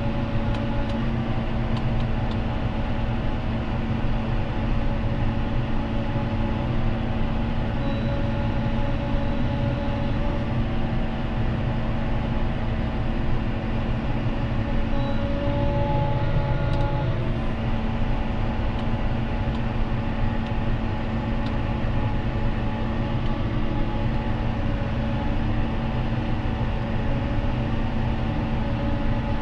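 John Deere 6215R tractor's six-cylinder diesel engine running at a steady speed under work, with no change in pitch or level.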